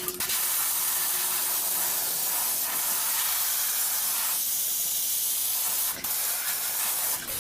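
Spray adhesive hissing from a spray nozzle onto seat foam in one long steady burst, breaking off about six seconds in, then a second, shorter and softer burst.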